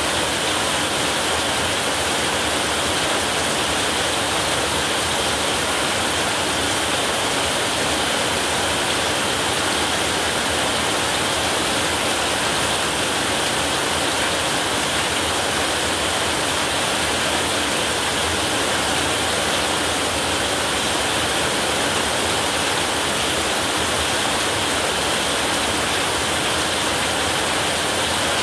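Heavy rain falling on a roof: a dense, steady hiss that does not let up, with no thunderclaps.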